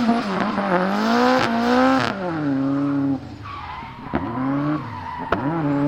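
Turbocharged 4G63 four-cylinder engine of a rear-wheel-drive Lancer Evo X drift car revving up and down, the revs falling away about two seconds in and climbing again near the end, with two sharp pops in between. The engine is misfiring.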